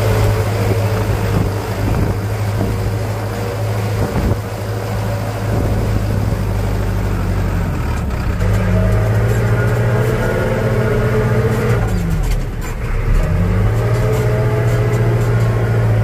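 Heavy diesel machine engine running hard, its pitch sagging and picking up again twice, once near the middle and once about three-quarters of the way through.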